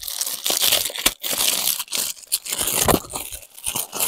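A small plastic shipping packet being torn open and crinkled by hand, in a run of irregular rips and rustles.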